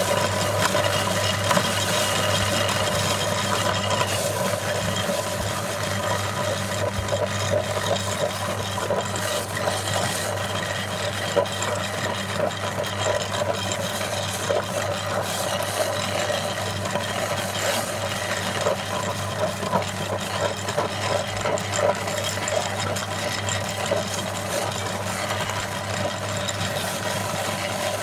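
Motor-driven aluminium meat grinder running steadily, its auger crushing hard coloured cookies into crumbs: a constant motor hum under a stream of small crackling crunches.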